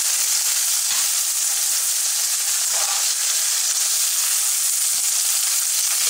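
A pan of sea cucumber (trepang) and vegetables frying with a steady, even sizzle.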